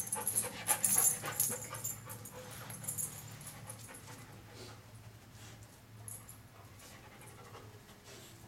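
Dog panting in quick breaths, loudest in the first three seconds and then fading.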